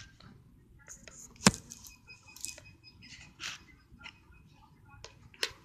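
Small handling clicks and taps, with one sharp knock about one and a half seconds in.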